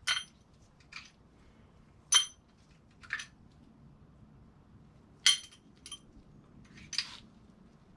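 Steel pushrods and small valvetrain parts clinking against each other and the engine as they are pulled out and handled: four sharp ringing clinks with softer scrapes between.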